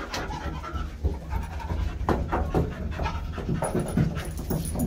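Black Labrador puppy panting, about three quick breaths a second, over a low steady hum.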